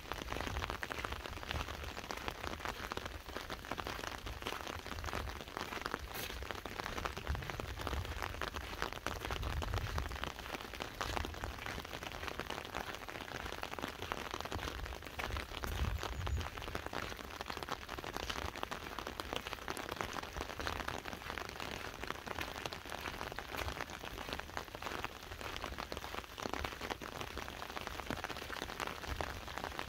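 Steady rain pattering on an open umbrella, thick with tiny drop taps, heard binaurally. A few soft low thuds come now and then.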